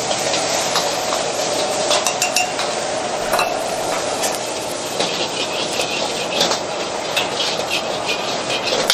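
Metal wok ladle scraping and clinking against a steel wok as egg fried rice is stir-fried, with many irregular clinks over a steady sizzle and the rush of the gas burner.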